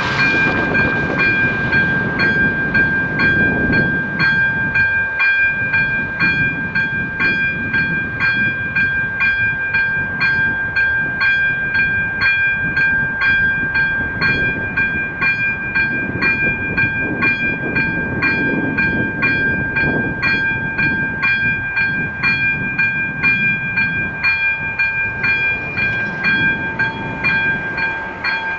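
Electronic level-crossing warning bell (AŽD ZV-02) ringing a quick, even chime of about two strokes a second over a steady high tone: the crossing's warning before its barriers lower for a train. A low rumble runs beneath it.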